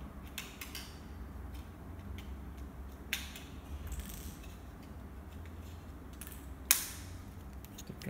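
Handling sounds of a plastic wireless-earbud charging case: scattered small clicks and creaks, with a sharp click about three seconds in and a louder, sharper one near the end, over a low steady hum.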